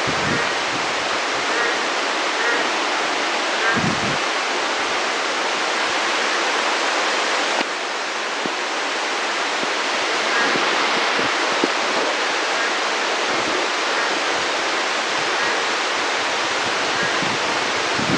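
Heavy rain falling steadily, a dense even hiss, with a couple of brief low thuds near the start and about four seconds in.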